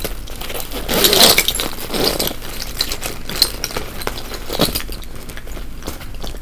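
A fabric backpack being handled close by, rustling and scraping irregularly, with keychains on it jangling and a few sharp clicks.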